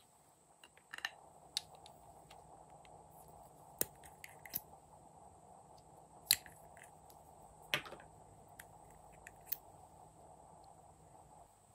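Scattered sharp clicks and taps from plastic lipstick and lip-gloss tubes being handled and their caps pulled off, about eight in all, over a steady faint hum.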